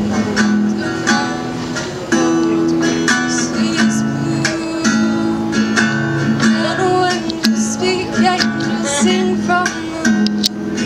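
Acoustic guitar music, an instrumental passage of a slow song with picked notes and strummed chords.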